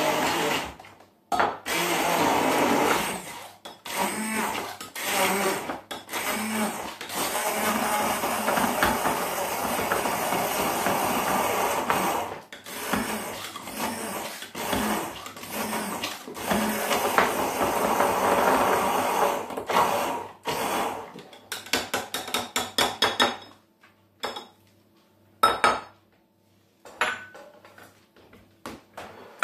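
Handheld stick blender blitzing chopped red pepper, cherry tomatoes, chilli and ginger in a tall jug into a chilli jam, run in several long bursts with brief stops. It is loud; the speaker calls it "a bit noisy". It stops about 23 seconds in, followed by a few light knocks and clinks.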